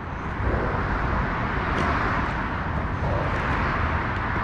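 Autobahn traffic: a steady rushing noise with a low rumble beneath, growing louder about half a second in.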